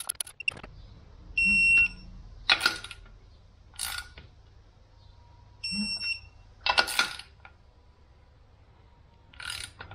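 Digital torque wrench giving two short, high beeps, a few seconds apart, as each clutch pressure plate bolt reaches the set torque. Between the beeps come sharp metal clicks and clanks of the wrench and socket on the bolts.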